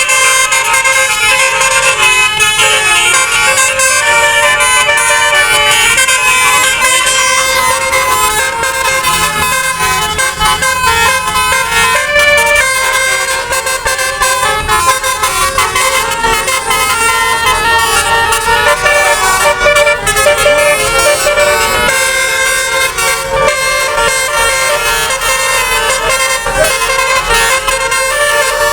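Telolet bus horn, a multi-tone musical horn, playing a tune of quickly changing notes without a break.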